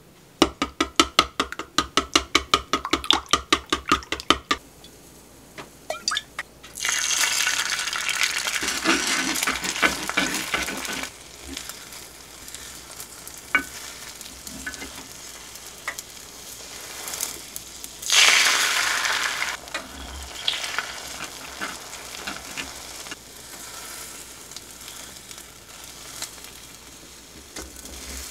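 Eggs beaten rapidly in a wooden bowl, a quick even clicking for the first few seconds. Beaten egg then goes into a hot square omelette pan and sizzles loudly, about seven seconds in and again around eighteen seconds in. Between the pours the frying fades to a low sizzle with occasional taps of wooden chopsticks and a spatula in the pan as the rolled omelette is turned.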